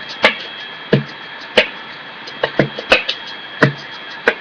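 Beginner human beatboxing: a simple beat of mouth-made kick drum, snare and closed hi-hat sounds. Nine or so sharp hits come at uneven spacing, some deep and thumping, others higher and clicky, like a pattern still being learned.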